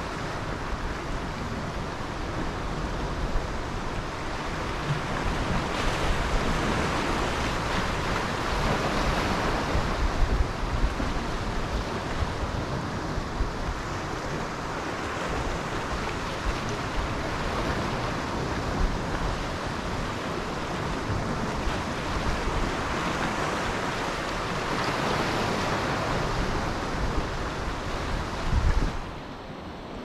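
Sea surf washing in slow swells, with wind rumbling on the microphone. The level drops abruptly just before the end.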